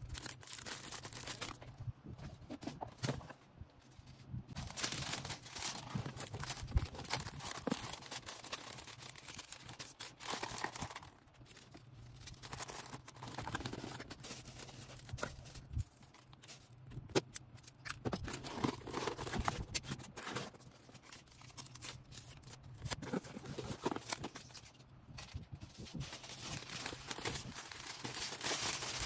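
Hands packing an order: plastic and paper packaging crinkling and rustling in uneven bursts, with scattered small clicks and taps.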